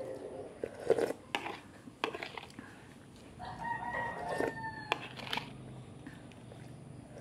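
A rooster crows once about halfway through, a single held call of about a second and a half. Around it come a few short clicks of a metal spoon against a plastic plate as she eats.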